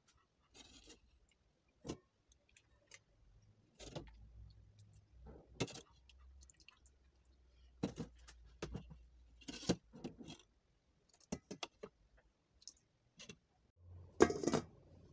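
A metal spoon scraping and knocking against a stainless steel pot and an enamel pot as stew is scooped across, in scattered separate taps. The loudest clatter comes near the end, as a lid goes onto the enamel pot.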